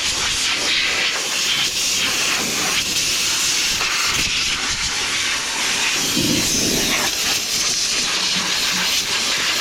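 Compressed-air blow nozzle blasting dust off a dirty farm machine: a loud, steady hiss.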